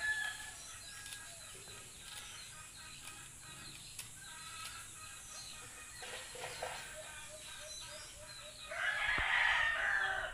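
A rooster crowing once near the end, lasting about a second and a half and louder than anything else. Before it, faint short bird calls.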